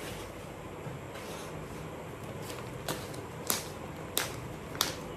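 Handling noise as the next suit is brought out: four sharp crackles in the second half, roughly one every two-thirds of a second, over a steady low hum.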